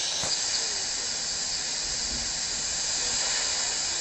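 Shortwave static hissing steadily from the speaker of a Retekess V115 portable radio, with a brief click about a quarter of a second in.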